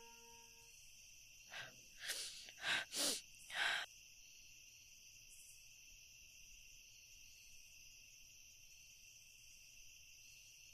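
A woman's short, breathy sobs and sniffs, five in quick succession about two seconds in, over a steady high chirring of crickets.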